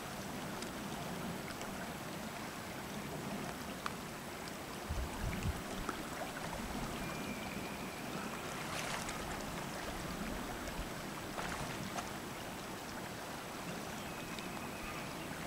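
Steady rush of a shallow river flowing over stones, with a soft low bump about five seconds in.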